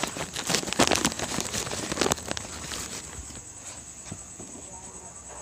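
Rustling, scratching and tapping as a small kitten is held and handled on a tabletop, busy for about the first three seconds and then quieter. A steady high-pitched whine runs behind it.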